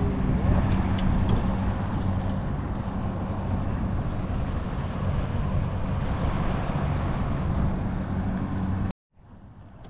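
Small boat's outboard motor running steadily while the boat is underway, with the rush of water and air around the hull. The sound cuts off abruptly near the end.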